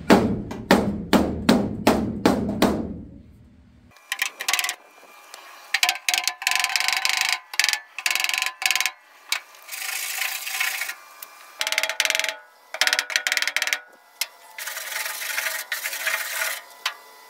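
A quick series of hammer blows, about three a second, on the sheet-steel roof of a 1948 Willys truck, knocking out a dent. Then, from about four seconds in, hand-sanding strokes scrape back and forth across the same steel panel in short and longer passes, with the panel ringing faintly.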